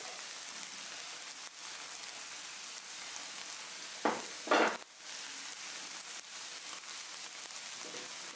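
Ground beef with cream and spices sizzling steadily in a frying pan. About four seconds in come two short knocks as a plate is set down on the table.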